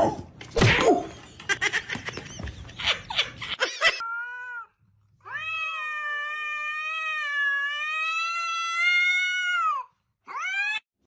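A cat yowling at another cat: a short call, then one long drawn-out yowl of about four and a half seconds, and a short rising call near the end. Before it, about four seconds of jumbled sharp, noisy sounds.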